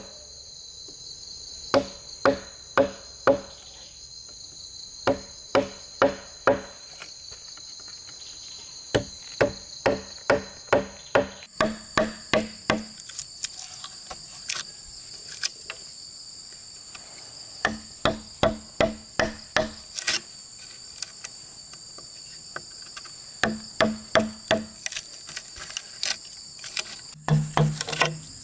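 Blade being knocked into a green bamboo tube with a wooden mallet to chisel out a hole: sharp knocks in quick runs of four or five, each with a short hollow ring from the tube. Insects drone steadily and high-pitched throughout.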